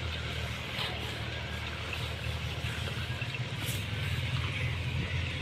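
Steady low engine or motor hum running evenly, with faint background noise.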